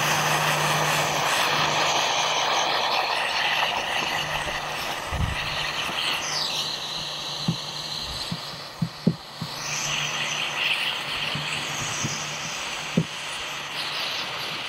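Small handheld gas torch burning with a steady hiss as it heats the polyethylene kayak hull to fuse in plastic filler. The hiss drops for a moment about halfway through. A few light taps follow in the second half.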